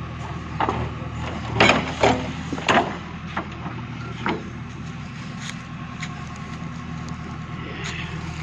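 JCB backhoe loader's diesel engine running steadily while the backhoe digs, with several sharp knocks from the arm and bucket working in the soil, loudest about one and a half to three seconds in.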